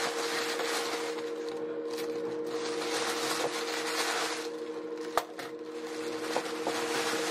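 Plastic bag crinkling and rustling as frozen corn cobs are pulled out of it, with one sharp clink about five seconds in as a cob is set down on a stainless steel steamer basket. A steady low hum runs underneath.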